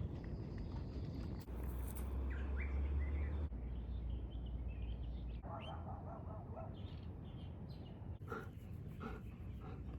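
Short bird chirps and calls over a low outdoor rumble, changing abruptly several times as the recording cuts from one short clip to the next.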